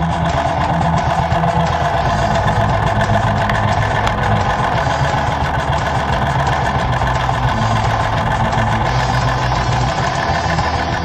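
Motorcycle engine idling steadily while the bike stands still.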